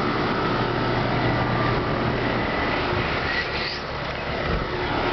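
Wind blowing across the phone's microphone, a steady rushing noise with a low hum underneath.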